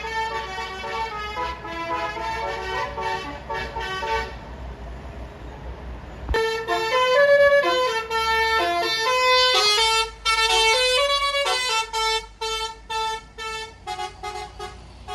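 Bus 'telolet basuri' musical horn playing a melody of stepping notes. After a short pause it starts again about six seconds in with a louder tune that breaks into quick short notes near the end.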